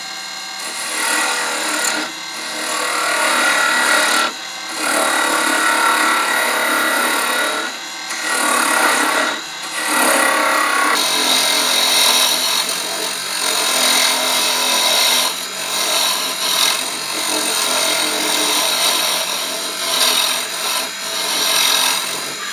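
Wood lathe running while a hollowing tool cuts into the end grain of the spinning wooden blank, hollowing out the box's interior: a continuous scraping hiss of shavings being cut, dropping out briefly several times.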